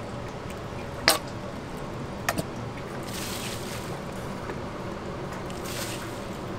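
Dry seasonings, sesame seeds and red chili flakes, poured onto sliced cabbage in a stainless steel bowl, heard as soft hissing patter about three seconds in and again near the end. There are a few sharp clicks, one about a second in and two close together a little later, over a steady kitchen hum.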